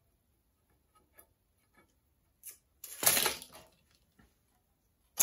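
Steel tape measure blade retracting into its case with a short rattling whir, about three seconds in, after a few light ticks of tools on the steel bench. A sharp metal clack on the steel bench near the end.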